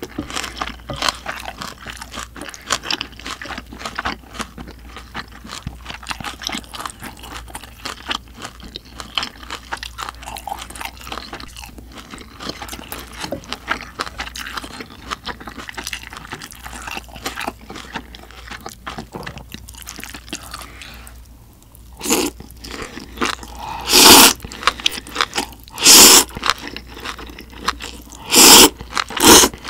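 Close-miked chewing and mouth sounds of a person eating, then, from about twenty-two seconds in, several loud slurps of buckwheat noodles about two seconds apart.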